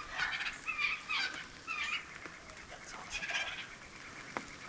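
Wild turkeys calling close by: a series of short calls, several in the first two seconds and a cluster about three seconds in.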